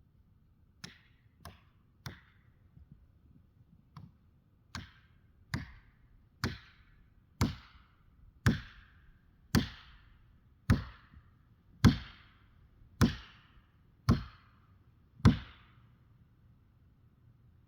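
A series of about fifteen heavy strikes on wood, roughly one a second, starting light and growing harder, each with a short ringing tail.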